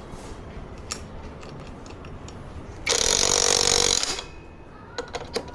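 Scattered sharp clicks of metal tools on motorcycle engine parts, then a loud burst of about a second from a power tool, with more clicks near the end.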